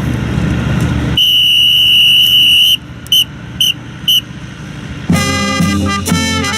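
A drill leader's whistle blows one long blast, then three short blasts, giving the signal to the marching drill team. About five seconds in, a brass band starts playing.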